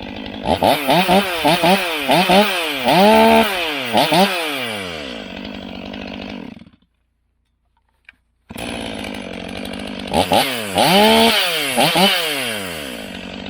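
Stihl MS 500i fuel-injected 79 cc two-stroke chainsaw idling and revved in a quick series of short throttle blips that drop back to idle each time. The sound cuts out for about two seconds in the middle, then the saw is idling again with a few more blips.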